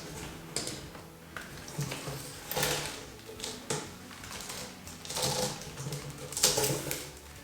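Irregular clicks, knocks and light clatter of a mountain bike being handled and turned over.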